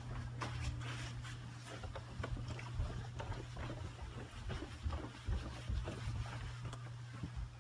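Footsteps and handheld camera handling noise, irregular knocks and rustling, over a steady low hum.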